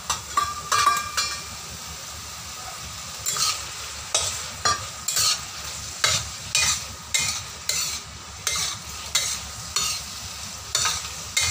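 Spatula scraping and stirring long beans and beef in a stainless steel wok, over a steady sizzle of stir-frying. From about three seconds in, the strokes come regularly, just under two a second.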